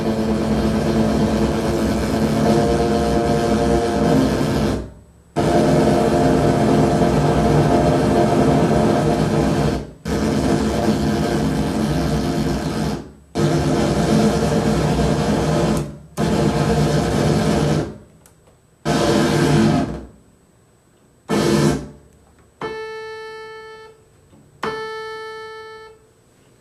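Synthesizer keyboard and hand-built circuit-bent noise machine playing: long, harsh, noise-laden held tones that stop and restart every few seconds, the notes growing shorter. Near the end come two cleaner, pure-pitched notes that fade away.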